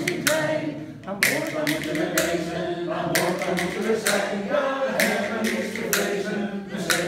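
Voices singing together without instruments, with sharp clicks of rhythm bones played in time about once or twice a second.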